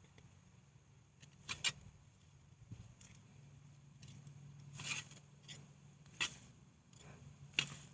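Digging in raised-bed soil to free sweet potato tubers: a handful of short scrapes and rustles, four of them sharper than the rest, over a faint steady low hum.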